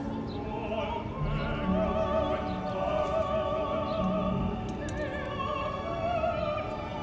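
Operatic singing: sustained notes with a wide vibrato, over a classical instrumental accompaniment.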